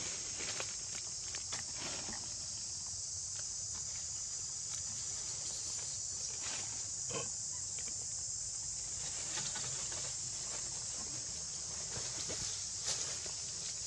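Steady, high-pitched chorus of insects in the undergrowth, with a few brief faint sounds over it, the clearest about seven seconds in.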